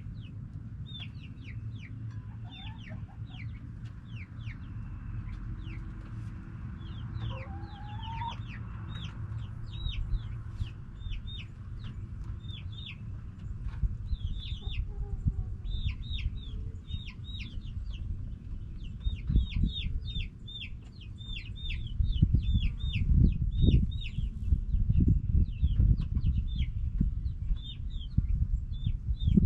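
Backyard chickens calling, with a continuous string of short, high calls and a few lower clucks. In the second half, loud low thumps and rumble come in.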